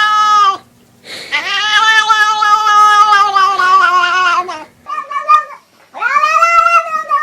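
A cat yowling in long, drawn-out calls. One call ends about half a second in, a second runs about three seconds, a short one comes near the middle, and another starts about a second before the end.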